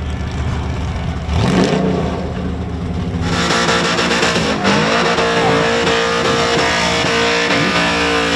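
Burnout car engine revving, rising in pitch about a second in. About three seconds in the sound cuts to an engine held at high revs with the rear tyres spinning in a smoky burnout, a loud steady note that holds.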